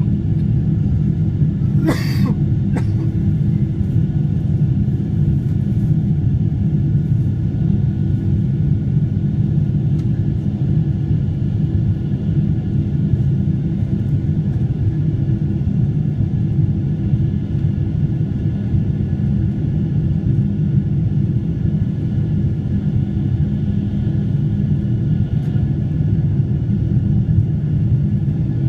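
Boeing 747 jet engines heard from inside the passenger cabin during the climb after takeoff: a steady, loud low rumble with faint steady hums above it. A brief sharp noise about two seconds in.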